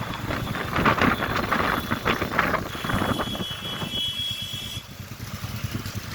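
Motorcycle on the move, with engine rumble and wind buffeting the microphone in gusts. A steady high-pitched whistle or squeal sounds for about two seconds midway.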